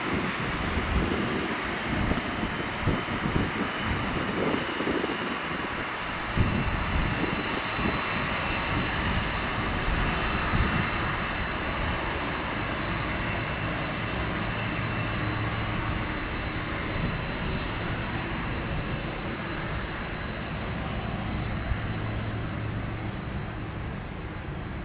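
Boeing 747 jet engines running: a broad roar with a steady high whine on top. The roar rumbles and crackles unevenly for the first several seconds, then settles to an even roar that slowly fades.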